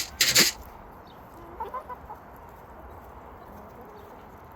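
Chickens clucking softly, a few short calls about a second or two in, after a brief sharp hissing burst just at the start.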